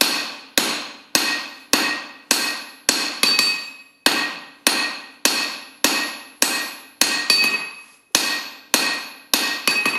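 Hand hammer striking a hot steel top-fuller blank on an anvil, forging the cheeks around the eye with a drift held in it so the eye isn't pinched. The blows come in a steady rhythm of nearly two a second, each followed by a short metallic ring.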